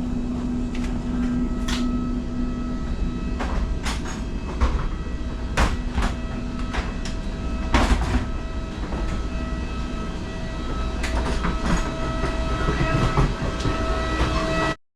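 Tren Maya passenger train running: a steady low rumble with a constant whine and scattered clicks and knocks from the rails and carriage, cutting off suddenly near the end.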